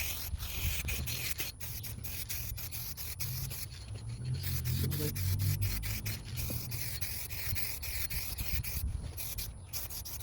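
Aerosol can of clear coat spraying in long hissing passes onto a headlight lens, with short breaks between passes about four seconds in and near the end. Wind rumbles on the microphone, strongest in the middle.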